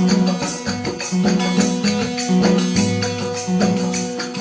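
Instrumental opening of a Rajasthani desi veena bhajan: a steady droning tone over a stepping bass line, with jingling hand percussion keeping a regular beat.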